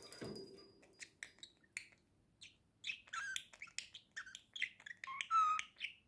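Budgerigar warbling: a fast run of short clicks and chirps that gets busier about halfway through, with a couple of clear whistled notes near the end.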